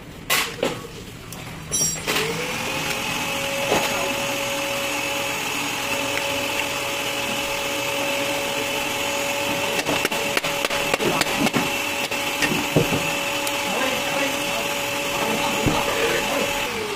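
A motor-driven machine spins up about two seconds in, runs with a steady whine for about fifteen seconds and winds down near the end. A few light clicks and knocks sound over it.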